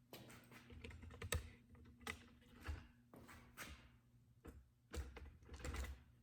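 Faint, irregular light clicks and knocks of small objects being handled, with a few duller thumps near the end, over a faint steady hum.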